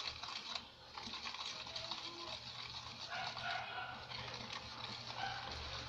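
Wire whisk stirring flour into a beaten egg-and-sugar mixture in a plastic tub: a quick, continuous scraping and ticking of the wires against the plastic.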